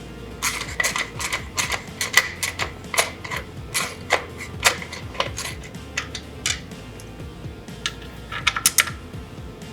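Irregular sharp metallic clicks and taps of hand tools fastening a carbon heat shield onto a motorcycle slip-on muffler, with a quick cluster of clicks near the end.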